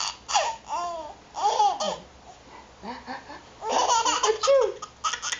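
A baby's belly laughter in several short fits with pauses between, the longest and loudest a little before the fourth second.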